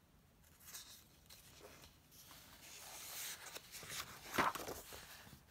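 Pages of a paperback picture book being turned by hand: paper rustling and sliding that builds over a couple of seconds, with a sharper, louder flap of the page about four and a half seconds in.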